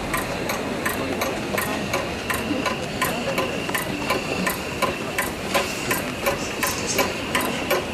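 Live band's percussion playing a steady clicking beat, about four knocks a second, over a sustained high tone.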